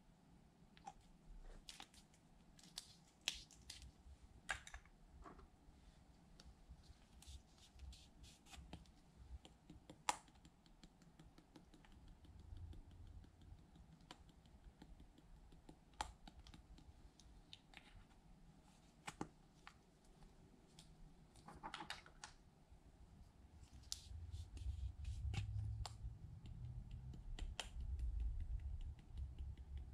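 Faint, scattered clicks and taps of small plastic cosmetic bottles and containers being handled and set down, with soft low handling rumbles now and then.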